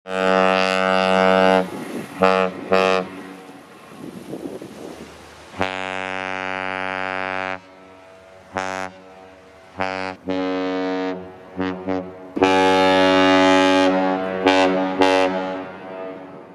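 Great Lakes freighters' ship horns blowing in a series of steady blasts: a long blast followed by two short ones, another long blast about six seconds in, several short blasts, and a long blast near the end.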